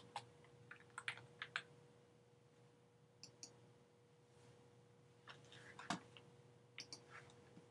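Faint computer keyboard keystrokes: scattered clicks in small clusters, the loudest near six seconds.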